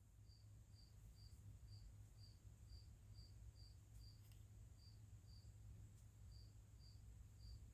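Faint cricket chirping, short high chirps at about two a second with a couple of brief pauses, over near silence.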